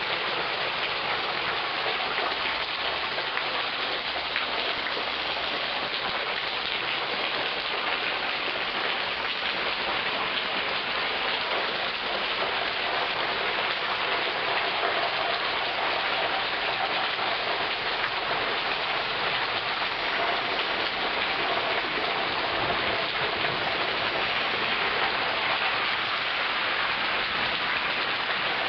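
Rain pouring down in a steady, even hiss.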